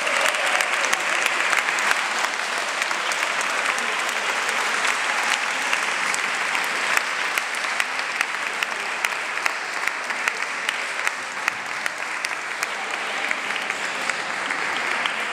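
Sustained applause from a crowd of people clapping, a dense patter of hand claps that eases slightly towards the end.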